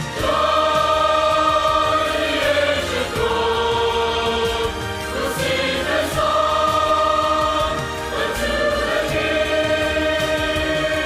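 Church choir singing a worship song in long held chords, the notes changing every couple of seconds.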